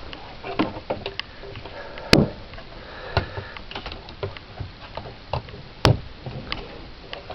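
Scattered clicks and knocks of a mains plug and lead being handled and plugged in, with two sharp, loud clicks, one about two seconds in and one just before six seconds.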